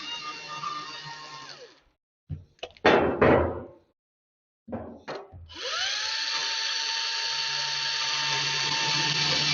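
Hercules portable band saw's motor spinning up a little over five seconds in and running steadily. Before it come a few sharp knocks and clanks of metal being handled.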